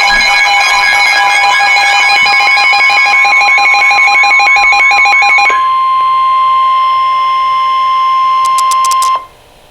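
Emergency alert attention signal: a loud, steady electronic warning tone near 1 kHz, the National Weather Service warning alarm that comes before the broadcast voice message. For about the first five and a half seconds a pulsing, warbling alarm is layered over it, then the steady tone carries on alone until it cuts off suddenly about nine seconds in, leaving faint hiss.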